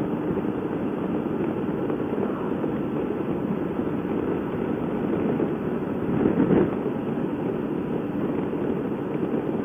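Honda motorcycle riding at road speed: steady engine and wind rumble, with a brief louder gust about six seconds in.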